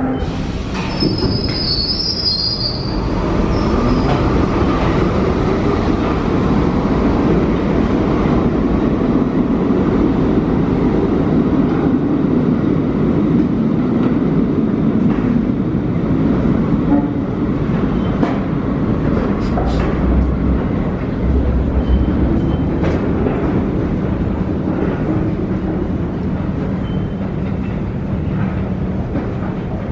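Kawasaki R68A subway train pulling out of an underground station: a brief high wheel squeal about a second in, then the steady rumble and clatter of the cars on the track, easing slightly near the end.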